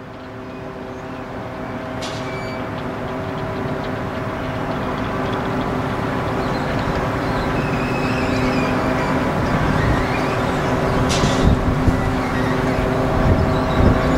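Droning hum of the ship FLORENCE SPIRIT's engines, several steady tones over a rumble, growing steadily louder as the ship approaches and passes under the bridge.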